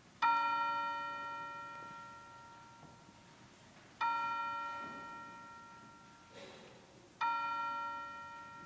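A bell struck three times, about every three and a half seconds, each stroke ringing out with several overtones and fading away.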